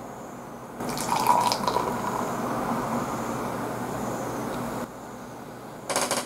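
Beer poured from a can into a glass, splashing and foaming for about four seconds before stopping. A short crackling burst follows near the end.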